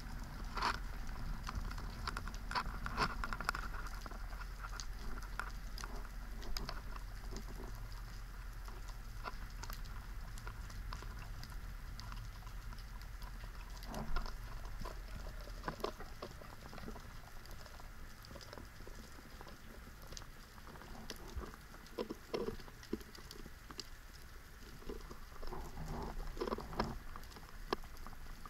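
Underwater ambience picked up by the camera: scattered short clicks and crackles, some louder knocks among them, over a low rumble that stops about halfway through.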